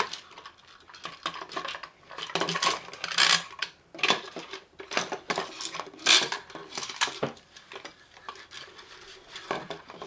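Toy handcuffs, their chains and keys clicking and clattering against a glass tabletop as keys are fitted into the maze locks. The clicks are irregular, with louder clatters about two and a half seconds in and again about six seconds in.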